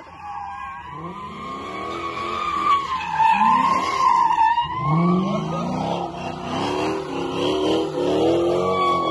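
Chrysler 300C's 5.7 L Hemi V8 revving hard in repeated rising surges while drifting, with the rear tyres squealing in a wavering howl as they spin and slide.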